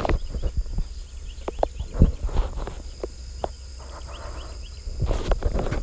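Crickets and birds across a field: steady high-pitched cricket trilling under many short bird chirps, with a few scattered knocks and a low rumble close to the microphone.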